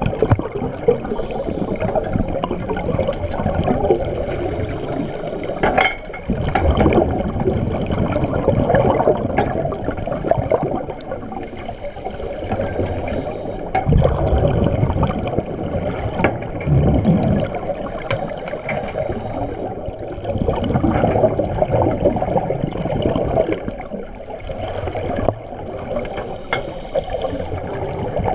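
Muffled underwater water noise heard through a GoPro's waterproof housing, with bubbly surges every few seconds from divers' scuba regulators. A few short sharp knocks come through, around six seconds in and again near fourteen and sixteen seconds.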